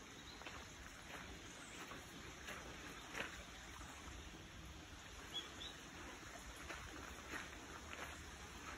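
Footsteps on a gravel path strewn with fallen leaves, at a walking pace, over a low steady rumble.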